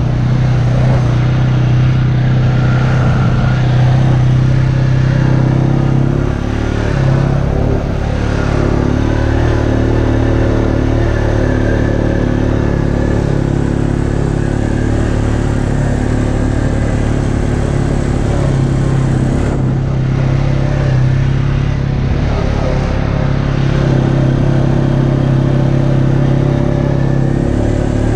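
ATV engine running at a steady cruising speed, heard from the rider's seat, with a brief drop in revs about six to eight seconds in before it picks up again.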